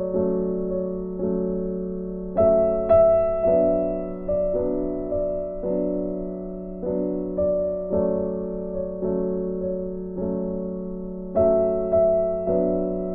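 Background music: a gentle piano melody in struck chords that ring and fade, a new chord about every half second to second.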